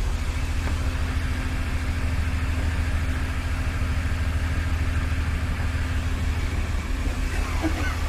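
Ford Taurus engine idling rough with a dead miss: cylinder 1 gets no spark from a bad ignition coil.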